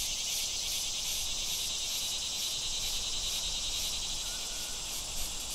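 Steady outdoor insect chorus: a dense, high chirring with a fast, even pulse running through it.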